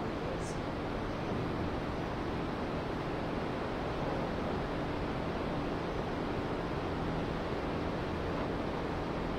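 Steady, even rushing background noise with a faint low hum, unchanging throughout.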